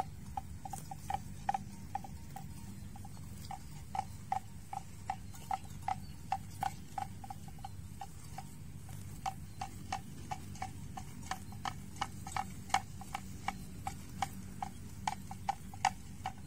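Water buffalo grazing, tearing grass in crisp clicks about two to three a second, with a short pause partway through, over a steady low rumble.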